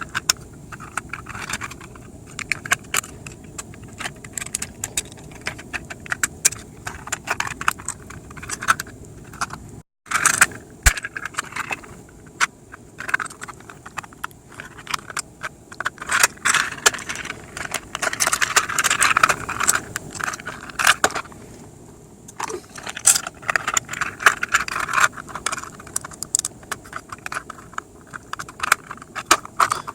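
Thin 3D-printed plastic parts of a foldable model van being handled and folded, giving dense, irregular clicking, scraping and rattling. The sound drops out briefly about ten seconds in.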